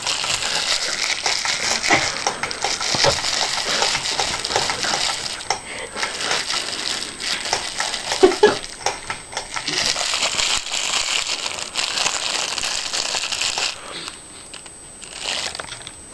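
Cellophane shrink-wrap on a new DVD case being crinkled, a dense crackling that goes on for most of the time, then drops away near the end with one more short burst.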